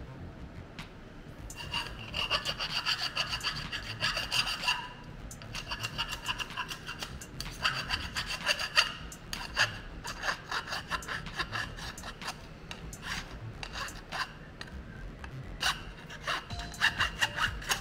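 Hand file or deburring tool scraping along the edges of a freshly CNC-milled metal plate, in quick strokes that come in several bursts, with a ringing tone from the plate.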